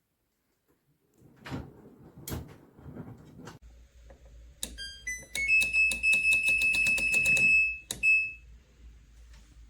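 A couple of knocks, then a washing machine's control panel beeps: a short rising start-up chime, a fast string of high beeps lasting about two seconds, and one last beep. A low hum runs under the beeps.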